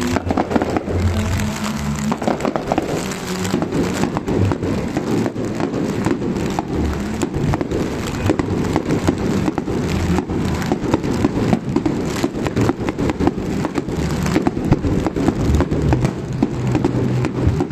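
Fireworks crackling: many small stars popping in a dense, rapid crackle. Music plays underneath, with held low notes plain at the start and again near the end.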